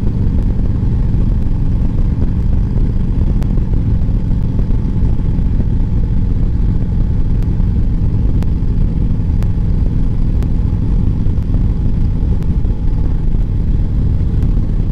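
Motorcycle engine running steadily at cruising speed, with heavy wind rumble on the microphone.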